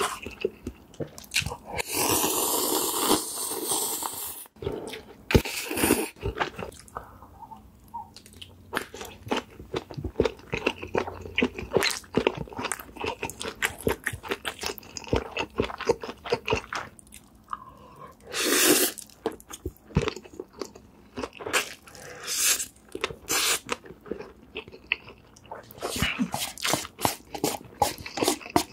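Close-miked eating sounds: Carbonara Buldak cup noodles slurped in long draws about two seconds in, again around six seconds and near nineteen seconds, with many small wet bites and chewing clicks between them.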